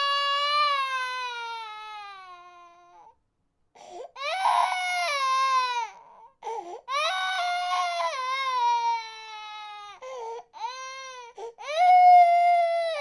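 A baby crying in a series of long, high-pitched wails, each falling in pitch as it fades. The wails are broken by short catches of breath and a few choppy sobs, and a louder wail starts near the end.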